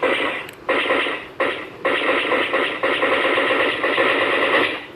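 Casio SA-47 electronic keyboard playing its built-in gunfire sound effect. Three short bursts of harsh noise come in the first two seconds, then a longer burst holds for about three seconds and cuts off near the end.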